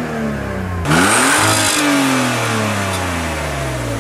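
Car engine revved in neutral/park: the revs fall away, surge sharply about a second in, then slowly die back down before cutting off abruptly.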